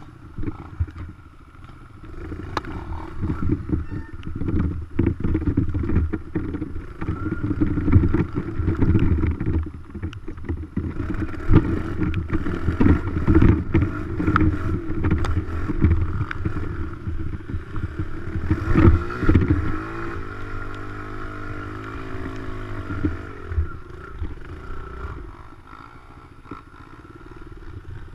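Dirt bike engine running with choppy, uneven revving, then settling about twenty seconds in to a steady idle that fades toward the end.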